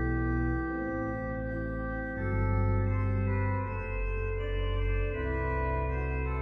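Two-manual organ playing slow, sustained chords over deep pedal bass notes, with the harmony changing about every second and a half.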